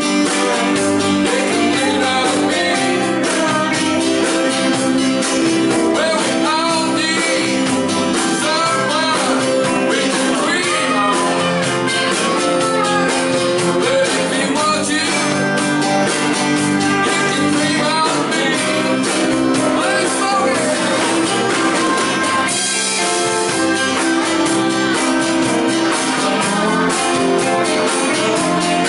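Live blues-rock band playing: a man singing over acoustic and electric guitars, Hammond keyboard, fiddle, bass and drums.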